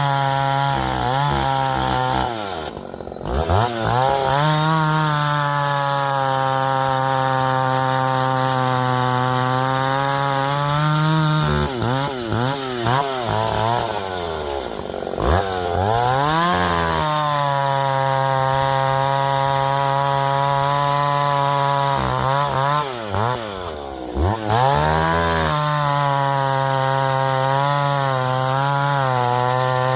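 Vintage Husqvarna L65 two-stroke chainsaw running near full throttle while bucking ash firewood. Its revs drop and pick back up three times: about three seconds in, again from about twelve to sixteen seconds, and around twenty-three seconds.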